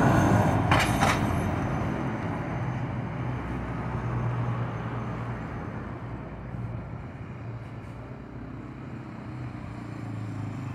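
City bus's diesel engine passing close and pulling away, fading over several seconds, with a short hiss about a second in. A motorcycle engine comes up near the end.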